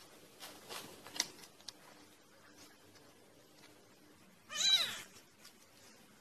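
A cat meows once, a short call that rises and falls in pitch, after a few faint clicks and rustles.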